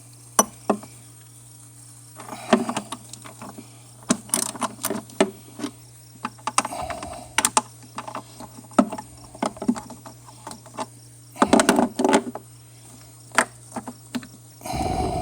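Ratchet and socket clicking and metal tool clinks in irregular bursts, loosening the 10 mm bolts on a Ford 5.4 L engine's intake tube over the throttle body.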